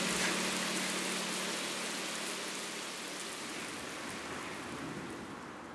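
A steady, even hiss of noise, like rain or wind in the film's sound design, slowly fading out, with a faint low hum under it for the first few seconds.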